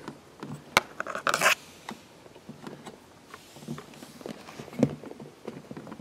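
Scattered small clicks and scrapes as a metal light-switch yoke and its mounting screw are handled and worked into a wall box against the plaster, with a sharp click about a second in and a short scrape just after.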